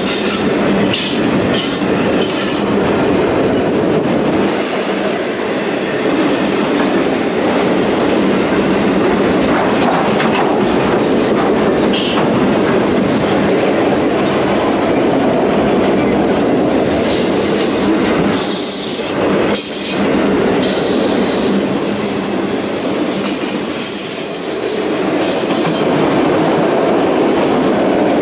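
Freight train of autorack cars rolling past at close range, a steady loud rumble and clatter of steel wheels on rail with occasional clacks. A high, thin wheel squeal rings out through the middle of the passage.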